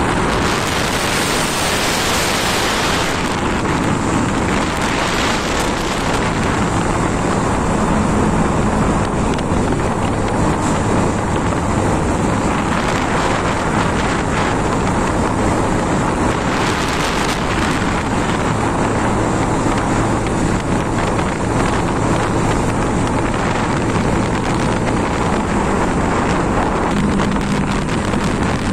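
Wind rushing over the microphone of a moving motorcycle, with the engine's steady low hum underneath; the wind is heaviest in the first few seconds.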